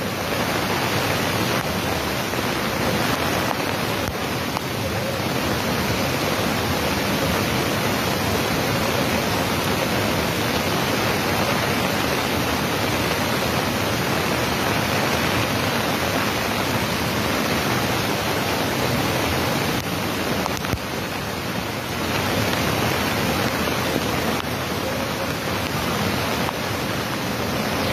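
Floodwater of a swollen, muddy river rushing by in a steady, even noise of churning water.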